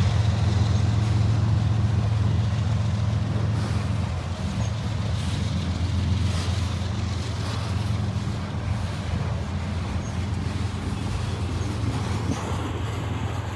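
A vehicle engine running steadily with a low hum, easing slightly about four seconds in.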